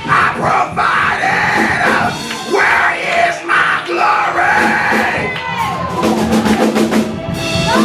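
Church praise music with drums, with a congregation's voices yelling and crying out over it.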